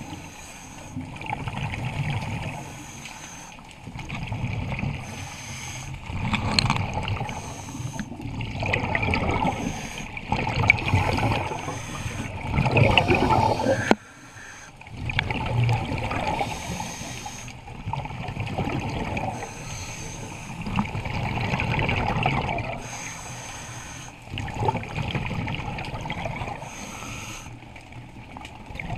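Scuba diver breathing through a regulator underwater: bursts of gurgling exhaled bubbles that swell and fade every few seconds.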